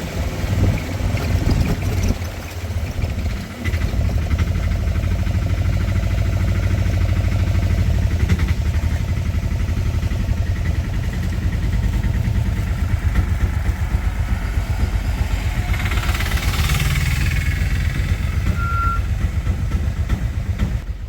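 Auto-rickshaw (tuk-tuk) small engine running steadily while riding, with a low, fast-pulsing rumble. A brief rush of noise comes about sixteen seconds in.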